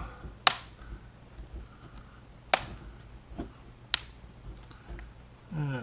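Plastic snap clips on a laptop screen's surround clicking into place as they are pressed in one by one: three sharp clicks, about two seconds apart, with a few fainter ticks between them.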